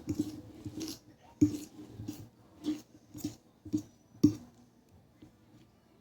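Cutlery clinking against a plate: about eight sharp clicks, roughly two a second, that stop a little past four seconds in.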